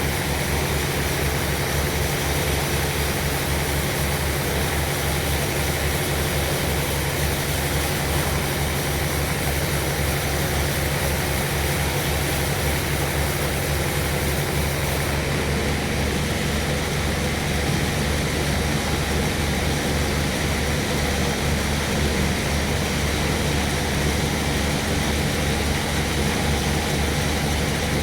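Sawmill machinery running steadily, with a fast, low, pulsing throb under the noise.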